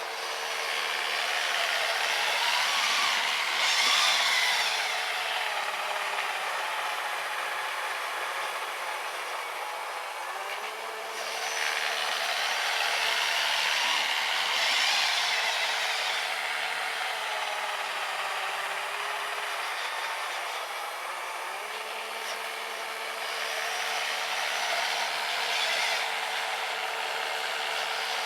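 The brushed 550 electric motor of an RC snowblower runs with a steady whine as its auger works through powder snow. Three times a loud rushing hiss swells and fades as the blower bites into the snow and throws it.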